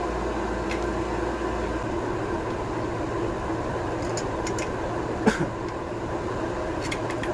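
A few light clicks and taps of small screws and a hand tool being fitted back into an outboard lower unit, the sharpest about five seconds in, over a steady machine hum in the workshop. A low rumble under the hum stops about two seconds in.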